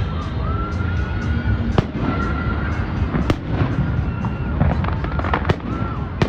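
Fireworks going off: sharp bangs about two seconds in, about three seconds in and near the end, with a run of crackling pops a little before the last bang, over a steady low rumble.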